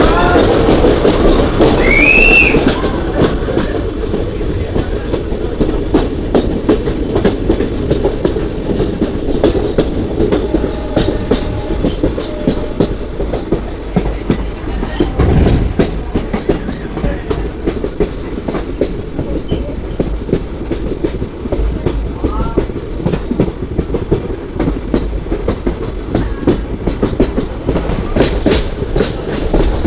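Poorna Express passenger train running along the track, its wheels clattering steadily over rail joints. A brief high squeal arches up and down about two seconds in.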